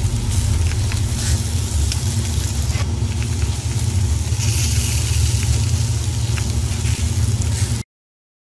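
Fire sound effect under a flaming title logo: a steady deep rumble of burning with scattered crackles, cutting off abruptly near the end.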